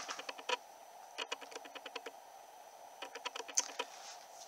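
Rapid light clicks in three short bursts, about ten clicks a second, a second or so apart, over a faint steady hiss.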